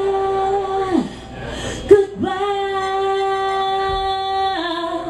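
A woman singing live through a PA, holding two long notes, the second one for over two seconds before dropping slightly in pitch near the end. A sharp knock comes just before the second note.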